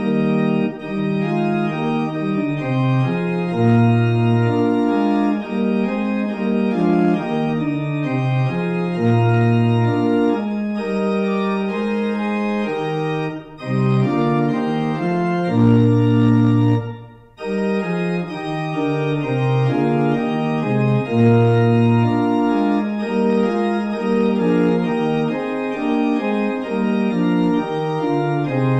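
Organ music: slow sustained chords over a moving bass line, with two brief breaks between phrases, one about 13 seconds in and one about 17 seconds in.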